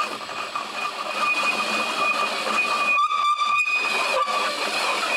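Cordless drill spinning an outside chamfer tool on the end of a 3-inch aluminum pipe, the cutter chamfering the pipe's edge with a steady high-pitched whine and hiss. The sound breaks off briefly two or three times a little past halfway, then carries on.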